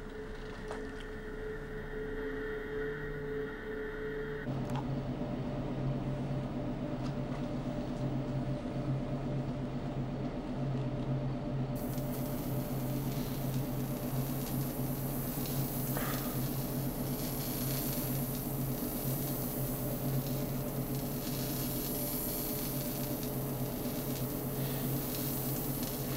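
Steady electronic hum made of a few held tones. About four seconds in it shifts to a lower, fuller drone, and a hissy high layer joins it around twelve seconds in.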